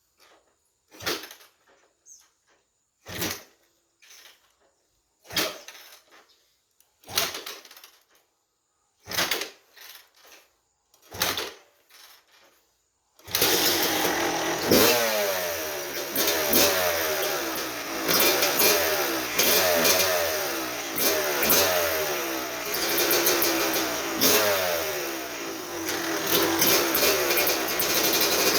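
1987 Kawasaki KX250 two-stroke motocross engine being kick-started: about six separate kicks roughly two seconds apart, then it catches about thirteen seconds in and runs with repeated revs rising and falling.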